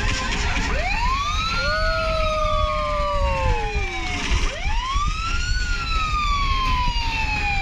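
Synthesised siren sound effect from the soundtrack music, two sweeps that each rise quickly then fall slowly, the first with a second, lower sweep alongside.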